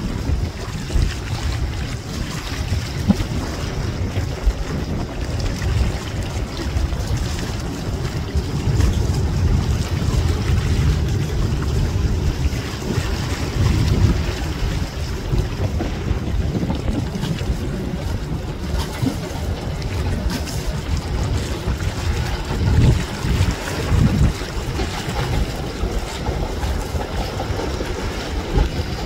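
R211A subway train running along the line: a steady low rumble with a noisy rush over it and a few faint knocks from the running gear.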